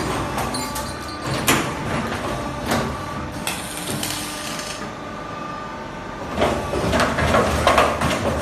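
Automatic double J hook bending and welding machine running: sharp metallic knocks a little over a second apart, easing off around the middle, then a busier clatter from about six and a half seconds on.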